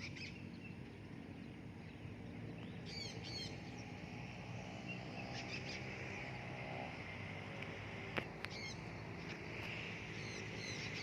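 Birds chirping in a few short bursts over a steady outdoor hiss, with one sharp click about eight seconds in.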